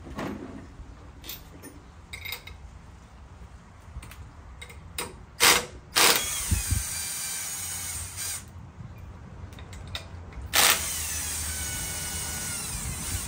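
Cordless power tool spinning lug nuts off a truck's wheel-hub studs: two runs of a steady whine, each two to three seconds, whose pitch drops then holds. Before them come clicks and knocks of the socket and nuts, with one loud knock just before the first run.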